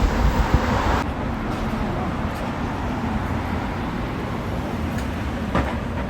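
Steady low rumble of a road vehicle on the move, with the higher hiss thinning out about a second in.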